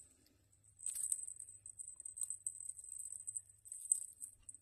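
Faint, high jingling and rattling of a dangling cat toy as a kitten bats at it, with a few light taps, starting about a second in.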